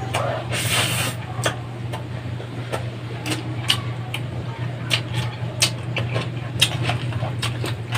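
Close-up eating sounds: mouth clicks and smacks from chewing rice and noodles eaten by hand, irregular sharp ticks about one or two a second, over a steady low hum.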